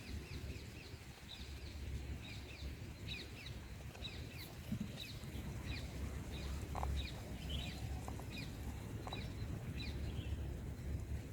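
A bird calling with short, repeated chirps, about one to two a second, over a steady low rumble.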